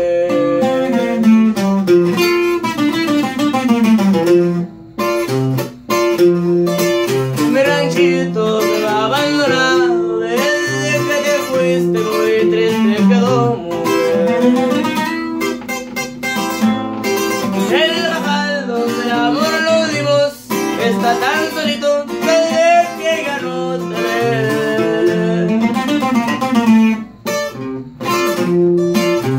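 Steel-string acoustic guitar strummed in a steady rhythm, breaking off briefly about five seconds in and again near the end.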